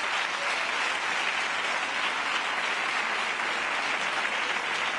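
Studio audience applauding, a steady dense clapping that holds at an even level throughout.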